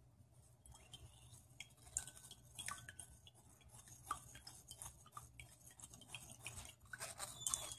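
Faint, irregular scraping and light clinks of a spoon stirring crab paste in a mesh strainer, pushing the liquid through and leaving the crab shell behind.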